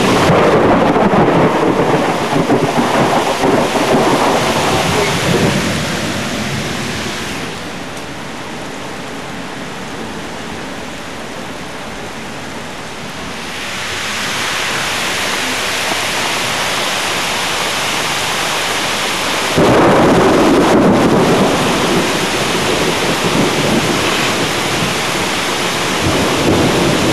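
Thunderstorm: a long roll of thunder fades over the first few seconds, leaving steady rain, and then a loud thunderclap breaks in suddenly about two-thirds of the way through and rumbles on to the end.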